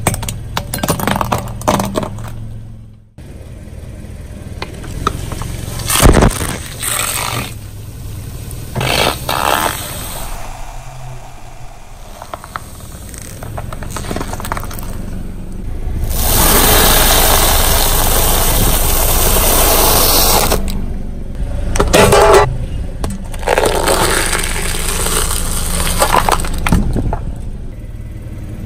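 A car tyre rolls over and crushes a series of objects on concrete, giving a string of cracks, crunches and scraping. A sharp hit comes about six seconds in, and a steady rushing noise runs for about four seconds past the middle.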